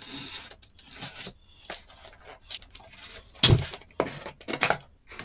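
Box cutter slicing packing tape on a cardboard box: a run of short scraping, tearing strokes, with a louder thump on the box about three and a half seconds in.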